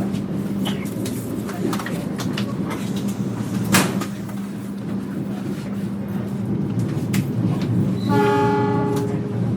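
Inside an executive-class passenger coach of a moving train: a steady low rumble with scattered clicks and knocks from the wheels and carriage, and a sharp knock about four seconds in. Near the end a pitched tone sounds for about a second, the locomotive's horn heard from inside the coach.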